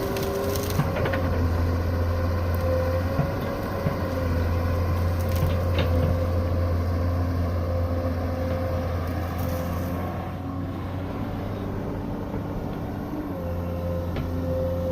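Hydraulic excavator running under load: a steady low engine hum with a hydraulic whine that shifts pitch as the controls are worked, and a few sharp cracks.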